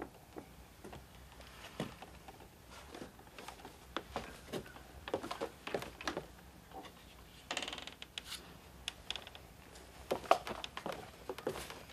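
Irregular knocks and clicks of footsteps on the wooden stairs of an elevated box blind as a man climbs down them, with a short rustle a little past halfway and the sharpest knocks near the end.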